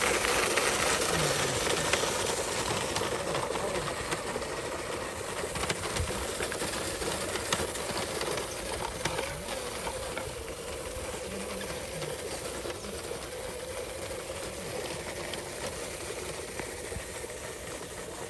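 Radio-controlled model truck's motor and gears whining steadily while it pulls a loaded trailer over dirt, growing gradually fainter as it drives away.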